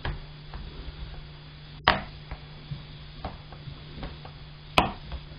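Plastic screen bezel of a Dell Latitude E7270 laptop pressed onto the lid by hand, its clips snapping into place with two sharp clicks about three seconds apart, among fainter ticks of fingers on the plastic.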